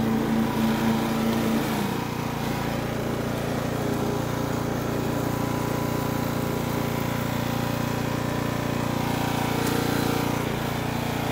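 Riding lawn mower's engine running steadily as the mower is driven along, its note easing slightly about two seconds in.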